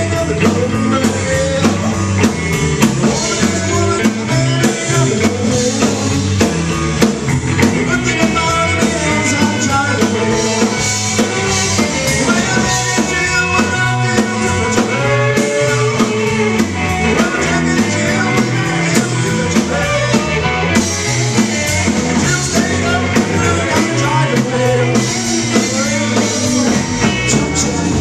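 Live rock band playing loud rock and roll: electric guitars over a drum kit, heard from the audience in the room.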